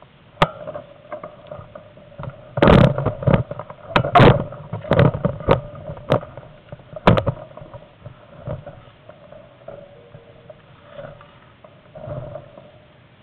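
Mountain bikes riding past close by on a dirt trail: tyres crunching over dirt and stones, with a run of loud knocks and clatters through the middle, then quieter rolling noise as the riders go by.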